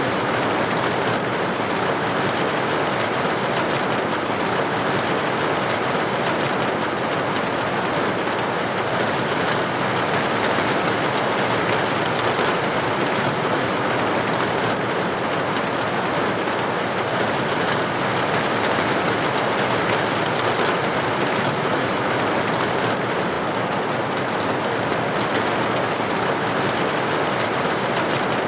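Steady rain pattering on a window pane, an even dense hiss with no let-up.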